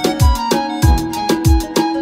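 Background music with a steady drum beat under plucked instrumental notes.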